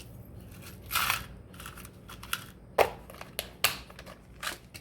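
Small metal curb chain and jewelry supplies being handled on a work surface: a rustle about a second in, then scattered light clicks and taps.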